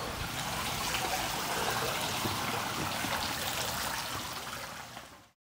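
Steady rushing noise, like water or air, that fades out about five seconds in.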